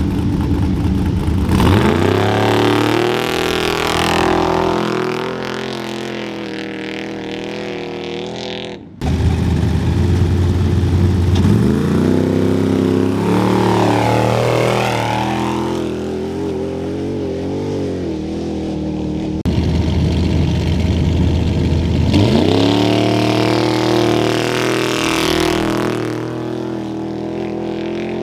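Off-road race vehicles launching off the start line, three in turn: each engine revs hard and climbs steeply in pitch as it accelerates away, then settles and fades.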